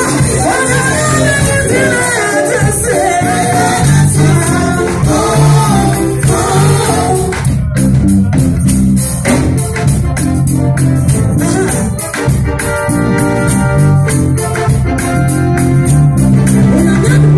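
Live gospel music: a woman singing over a band with keyboard and percussion keeping a steady beat. The sung melody is clearest in the first half, and the percussion grows busier about halfway through.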